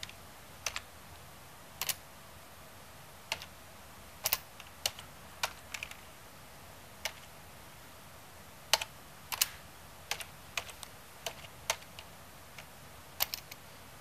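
Slow, irregular typing on a computer keyboard: single key presses, sometimes two in quick succession, with pauses of up to a second and a half between them as letters are entered one at a time.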